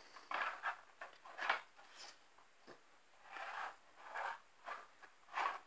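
Plastic tiers of a Nina Ottosson Dog Tornado puzzle toy scraping and clattering as a dog pushes them round to get at a hidden treat, in a string of short, irregular rasps.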